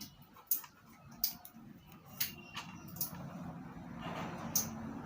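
Light, sharp clicks and taps, about seven spread unevenly, as series test-lamp wires are handled and attached to the two terminals of an electric water heater's heating element. A low steady hum comes in during the second half.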